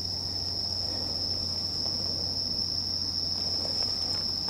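Steady, high-pitched chirring of night insects, unbroken, with a low steady hum beneath.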